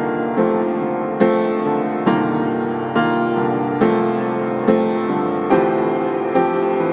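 Background music: slow piano chords, a new chord struck a little under once a second, each ringing on and fading.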